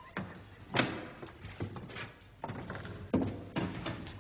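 Footsteps on a hard floor: a slow series of knocking steps with a short echo after each, the loudest a little under a second in.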